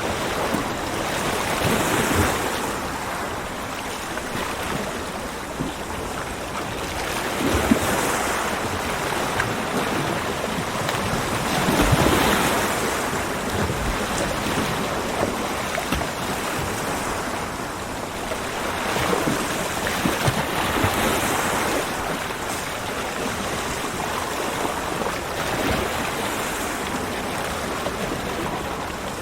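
Ocean waves breaking on a beach: a continuous wash of surf that swells and falls every few seconds as each wave comes in.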